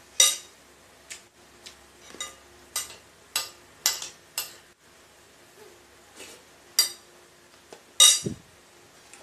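Spoon and dishes clinking while eating: about a dozen sharp clicks at irregular intervals, with the loudest near the start and another near the end.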